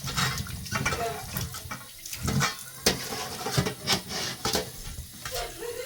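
Water running at a kitchen sink while food and utensils are handled, with irregular knocks and clatter.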